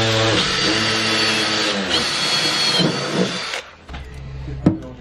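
Cordless drill running under load as it drills into a snowmobile's metal tunnel panel, its steady motor note dipping twice as the bit bites, then stopping about three and a half seconds in. A sharp click follows near the end.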